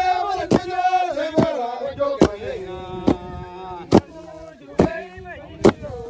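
Men chanting a work song in unison while a row of flat wooden beaters strike the ground together, one heavy thud a little under every second, as harvested grain is threshed by hand. The singing fades toward the end while the strokes keep time.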